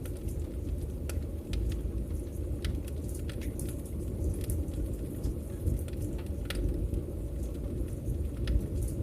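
Wood fire crackling: frequent sharp pops and snaps at irregular intervals over a steady low rumble of the burning fire.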